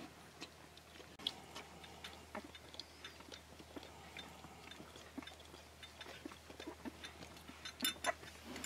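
12-day-old Akita puppies nursing at their mother: a faint, irregular run of small wet sucking smacks and clicks, with a couple of sharper clicks about eight seconds in.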